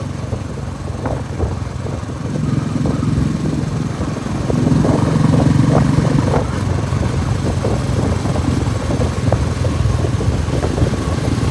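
Motorcycle engine running steadily on the move, getting a little louder a couple of seconds in.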